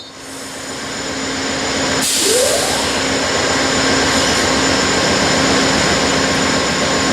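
A train rolling past close to the track, a steady, loud rumble of wheels on rail, with a brief rising whine about two seconds in.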